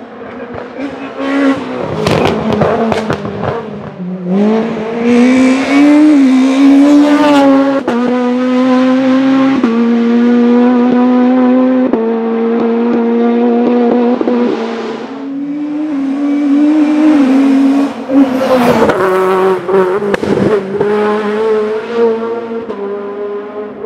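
The Spiess-built 16-valve four-cylinder engine of a VW Golf Mk1 hillclimb car, revved hard: its pitch climbs and steps through quick gear changes. Bursts of sharp cracks come near the start and again late on.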